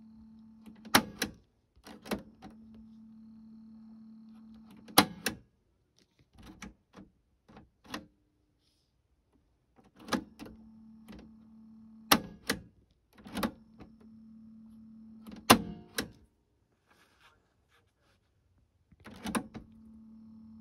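Piano-key transport buttons of a Realistic SCT-11 stereo cassette deck being pressed and released over and over, each press a sharp mechanical clunk, often in quick pairs. Between presses a steady low hum from the deck comes and goes, cutting in and out with the key presses.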